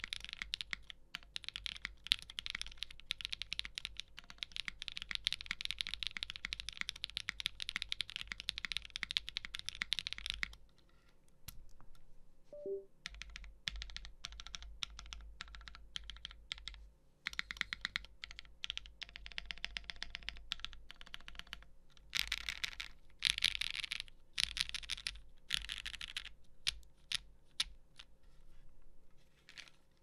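Typing on an ai03 Vega custom mechanical keyboard with lubed milky-top Creameron switches, a POM plate and GMK keycaps: a fast, dense stream of keystroke clacks. The typing pauses for a couple of seconds about eleven seconds in, then resumes, louder for a few seconds about two-thirds of the way through.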